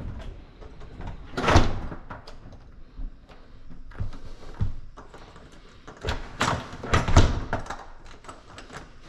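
A handful of separate knocks and bangs at uneven intervals. The loudest come about a second and a half in and again around six to seven seconds in.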